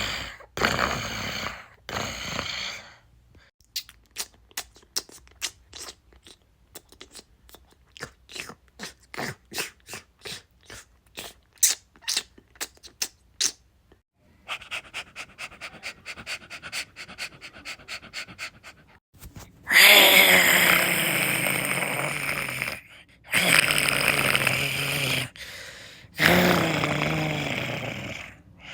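A dog making a run of its own noises. It opens with a few short, rough calls, then a long stretch of scattered sharp clicks or smacks that turns into quicker ticking over a hiss. About two-thirds of the way through come three long, loud pitched calls.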